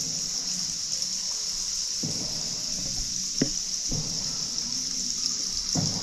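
Water sloshing from paddle strokes about every two seconds, over a steady high hiss, with one sharp click about halfway through.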